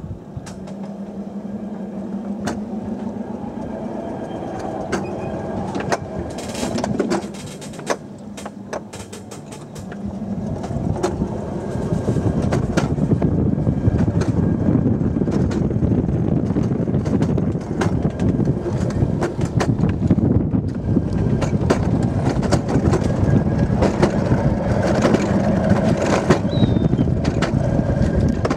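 Alpine coaster sled's wheels running along its steel tube rail: a steady hum with scattered clicks, turning into a louder, continuous rumble about ten seconds in.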